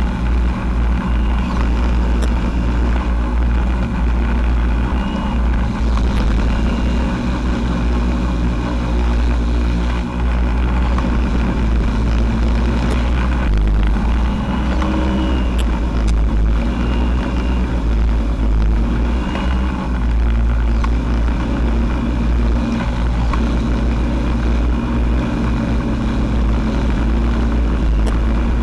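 Quadcopter drone's electric motors and propellers running steadily in flight, heard from the drone's own camera while it carries a loaded garden sprayer. The motor pitch drifts up and down as the throttle is worked, over a steady low rumble.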